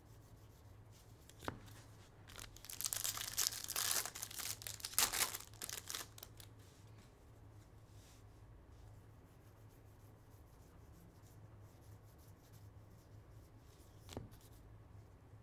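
Bowman baseball card pack wrapper torn open and crinkled for a few seconds, with a sharp tick just before the tearing and another near the end.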